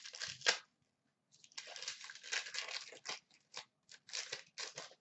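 Foil wrapper of an Upper Deck hockey card pack being torn open and crinkled, in a string of short rustling bursts with a longer crinkle from about a second and a half in.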